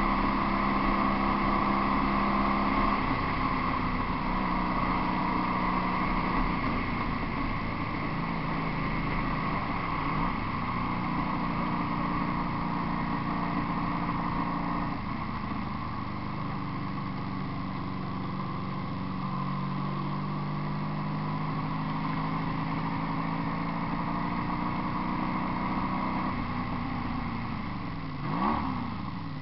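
1986 Honda VF750's V4 engine running through homemade exhaust pipes while riding, holding a steady drone that shifts pitch in a few steps. Near the end the revs dip and rise quickly a couple of times.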